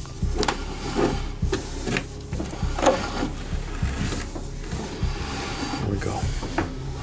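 Rope and gear scraping and knocking inside a narrow well pipe: an irregular rubbing rattle with scattered light knocks, the sharpest just before three seconds in.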